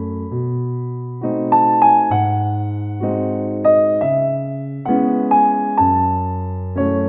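Slow, gentle piano music: a soft melody over sustained chords, with new notes struck about every half second to a second.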